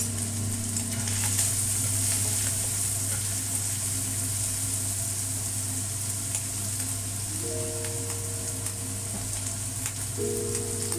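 Diced carrots, meat and garlic sizzling steadily in hot oil in a wok. A slotted spatula stirs them, with occasional light scrapes against the pan.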